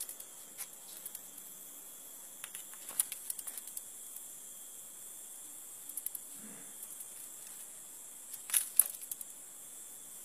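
Steady high-pitched insect drone with scattered sharp clicks and rustles. The loudest is a quick cluster of clicks about eight and a half seconds in.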